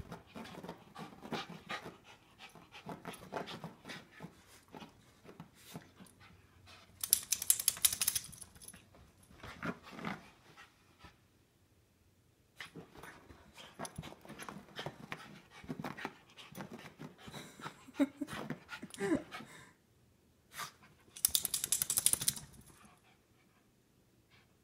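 A freshly bathed dog rolling and rubbing its body against carpet: repeated scuffling rubs, with two louder flurries of rubbing about seven and twenty-one seconds in, and some panting.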